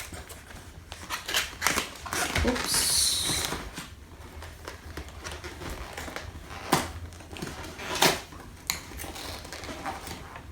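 Knife set and its packaging being handled during unboxing: scattered light clicks and knocks, with a short rustle about three seconds in.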